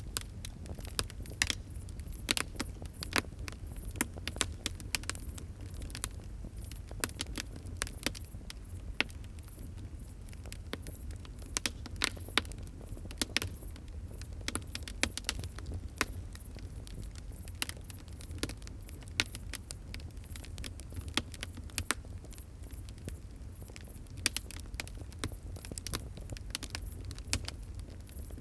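Wood fire crackling: irregular sharp snaps and pops, several a second, over a steady low rumble.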